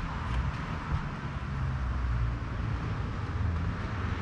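Steady low rumble and hiss of background noise, with a faint click about a second in.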